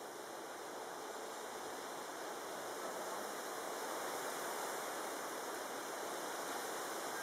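Distant jet airliner on approach: a steady rushing hiss of engine noise that slowly grows louder as the aircraft comes closer.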